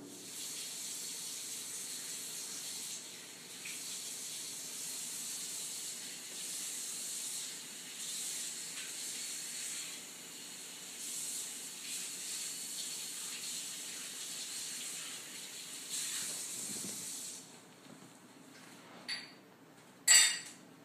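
A steady hiss, like running water, for most of the stretch, stopping about seventeen seconds in. Near the end come a short soft noise and then a brief sharp burst, the loudest sound.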